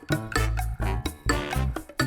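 Upbeat background music with a steady beat, a plucked bass line and percussion.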